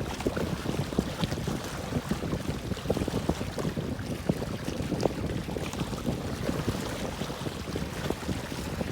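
Wind rumbling on the microphone over water lapping near boats: a steady low rumble dotted with many small, irregular splashes and knocks.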